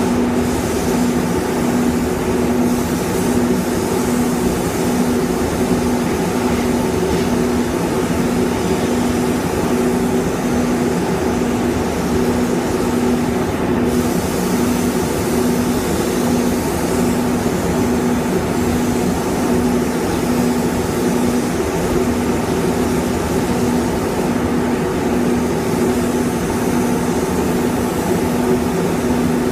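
Paint spray booth air handling running steadily: a constant hum under an even rush of air, with a gravity-feed spray gun's compressed air in use.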